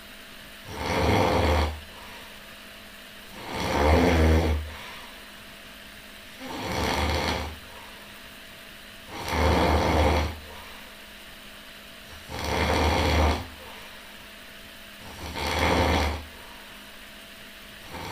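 A sleeping person snoring loudly with a regular rhythm of about one snore every three seconds. Each snore lasts about a second and has a strong deep buzz.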